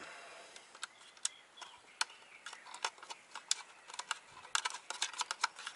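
Light, irregular clicks and ticks of small gauge-mounting hardware being handled: the nuts threaded by hand onto the gauge bracket studs, the bracket and gauge housings tapping together. The clicks come more often near the end.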